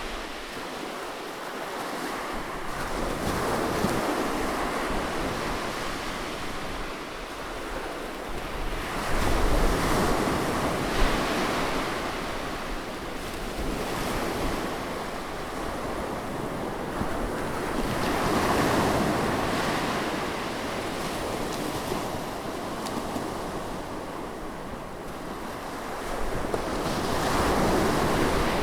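Sea waves washing onto the shore close by, swelling and falling back every several seconds, the strongest surge about ten seconds in, with some wind buffeting the microphone.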